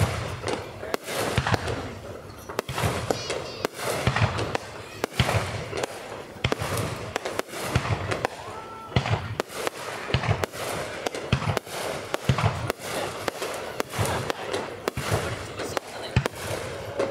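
Aerial fireworks display: shells bursting in a rapid run of booms and crackling cracks, one or two big booms every second throughout.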